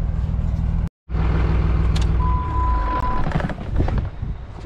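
Tractor engine running steadily, with a brief break in the sound about a second in. A single steady beep lasting about a second sounds midway.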